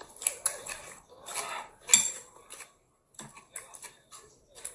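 Cutlery clinking against dishes in scattered sharp clicks and taps during a meal, the loudest about two seconds in.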